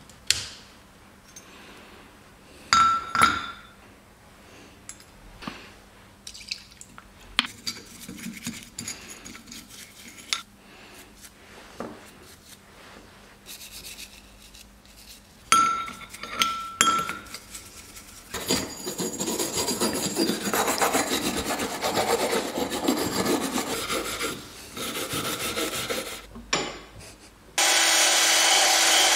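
Small steel engine parts clink and ring against a metal cover and the bench, then a part is scrubbed hard with a hand brush for several seconds. Near the end a cordless drill with a wire-wheel brush starts up and runs steadily.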